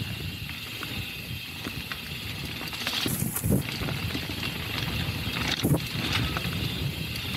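Mountain bike rolling over a rough stone macadam track: steady tyre rumble with the bike rattling, and sharp knocks from rocks about three seconds in and again near six seconds.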